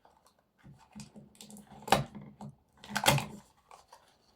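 A small parcel and its contents being handled and opened: scattered clicks and taps, with two sharp knocks about two and three seconds in.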